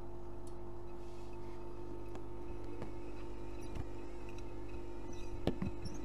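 Privileg Dynamic 6610 CN front-loading washing machine in its wash phase: the motor hums steadily as the drum turns the wet laundry, with a few short knocks, the loudest about five and a half seconds in.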